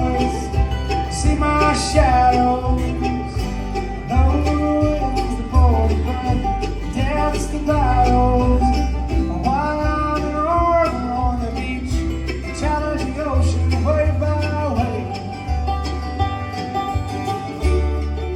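Bluegrass-style country music with banjo and guitar playing over a steady bass line, a melodic lead line bending through it.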